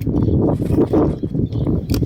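Wind buffeting the microphone: a loud, uneven low rumble that rises and falls in gusts, with a short sharp click near the end.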